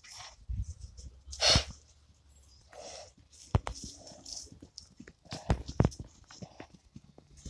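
Horses cantering on turf: scattered dull hoof thuds. About a second and a half in, a horse snorts hard through its nostrils, and there are softer blowing breaths near the middle.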